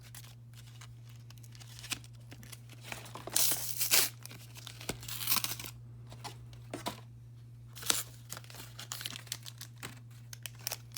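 Pokémon card pack packaging being torn open and crinkled in several short bursts, the loudest about three to four seconds in, with small clicks between. A steady low hum runs underneath.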